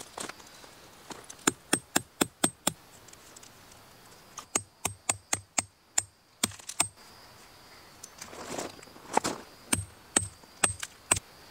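Hammer driving a tent peg into gravel ground: three bursts of quick, sharp strikes, about four a second.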